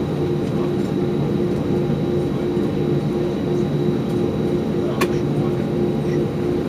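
Airbus A320 jet engines droning steadily and low, with a hum that pulses about three times a second. A single sharp click comes about five seconds in.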